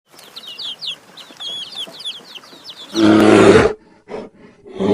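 Chickens calling: a run of quick high chirps for about three seconds, then a loud harsh call about three seconds in and another starting near the end.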